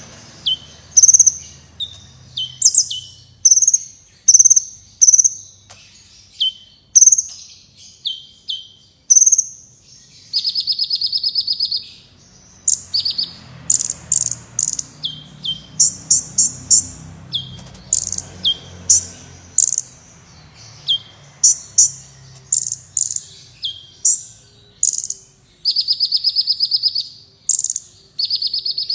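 Kolibri wulung, a sunbird, singing: a rapid string of high, thin chirps and short down-slurred notes. Two longer buzzy trills come in, one about ten seconds in and one near the end.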